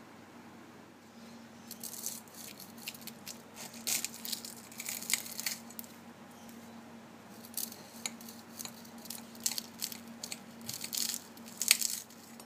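Crisp baked filo pastry crackling and crunching in irregular bursts as a mini meat pie is handled on a plate and cut with a knife, the sharpest crack near the end. A faint steady hum runs underneath.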